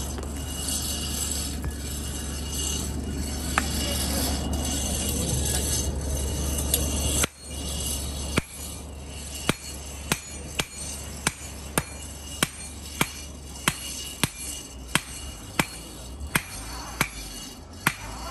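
Blacksmiths forging a red-hot blade by hand: hammer blows on hot iron over an anvil, short sharp ringing strikes about two a second through the second half. The first part holds a steady rushing noise.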